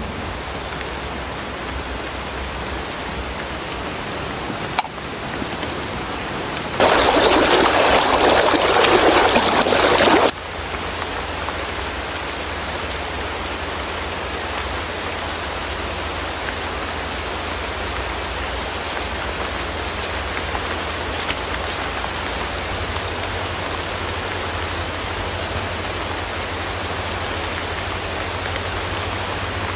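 Steady heavy rain falling, with a louder, harsher stretch of about three seconds some seven seconds in that stops abruptly.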